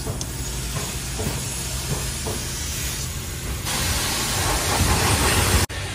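Self-serve car wash high-pressure wand spraying water onto a car: a steady hiss over a low hum. The spray grows louder about two-thirds of the way through, then drops out suddenly for a moment near the end.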